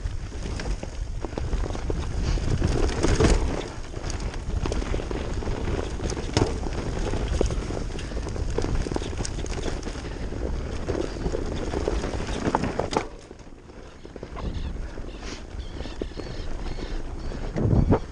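Mountain bike descending a rough trail: wind buffeting the microphone over the rattle and knocks of the bike on rocks and ruts, easing off briefly partway through.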